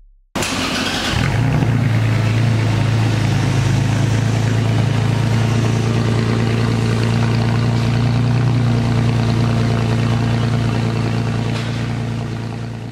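Toyota Tacoma's Carven cat-back exhaust at the tailpipe: the engine comes in suddenly with a brief rough flare, then settles into a steady, low idle that fades near the end.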